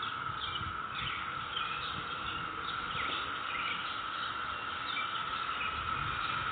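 A chorus of cicadas, a steady unbroken drone, with birds chirping over it in short calls.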